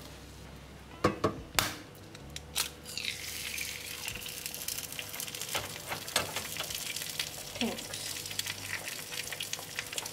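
A few sharp knocks about a second in, then an egg frying in oil in a small non-stick pan, a steady sizzle with crackling and spitting that starts about three seconds in.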